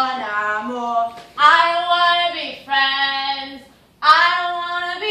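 A woman singing unaccompanied, drawing out long notes in short phrases with brief breaks between them.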